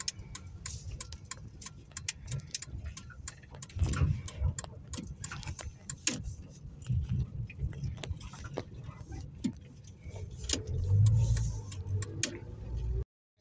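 A small car driving slowly over bumpy ground, heard from inside the cabin: a low rumble that swells as the car rides over bumps, loudest near the end, with scattered clicks and rattles from loose things inside the car.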